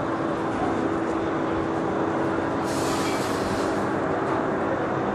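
Steady street background noise with a constant low hum, and a short hiss about three seconds in.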